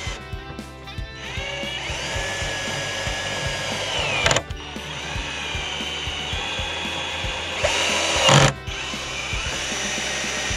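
Electric torque driver running three times, driving screws into wood: each run is a steady motor whine that ends in a quick change of pitch as the screw seats. The second run ends in a louder, harsher stretch.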